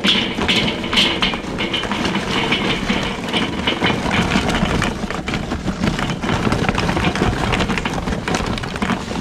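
Charcoal briquettes pouring from a paper bag into a Weber charcoal kettle grill, a steady clatter of many small knocks as they tumble onto the metal grate and bowl.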